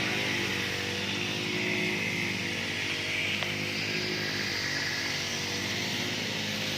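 Grass cutter's small petrol engine running steadily at an even speed.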